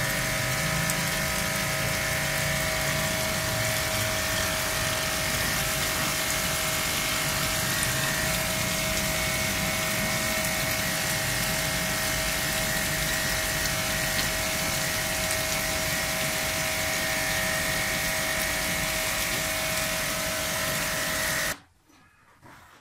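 Portable electric pressure washer motor running with a steady hum, over tap water pouring into a plastic bucket that feeds its suction hose. It cuts off suddenly near the end, leaving faint knocks.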